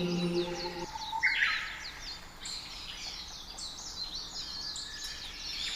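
Birds chirping and twittering in quick, short, high calls, many overlapping, with one harsher call about a second and a half in.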